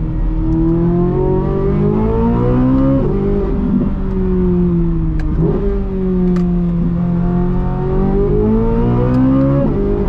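C8 Corvette Z06's flat-plane-crank V8 under way, its pitch climbing and falling through gear changes about three seconds in, again past the middle and near the end.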